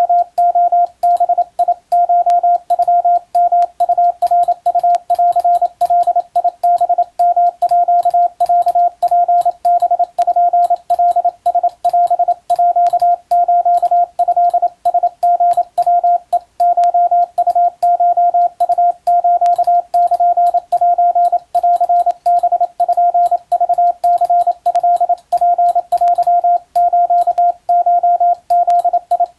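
Morse code sidetone: a single steady-pitched beep keyed on and off in dots and dashes, sending Japanese Wabun code telegram text, with sharp clicks at each keying edge. The sending pauses briefly a little past halfway.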